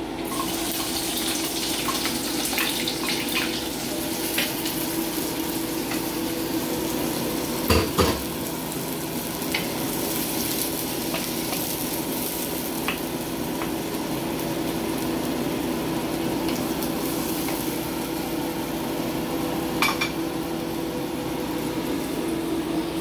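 Shrimp sizzling as they start to fry in a hot nonstick pan, stirred with a wooden spatula that clicks and scrapes against the pan. A louder knock comes about eight seconds in, and a smaller one near the end.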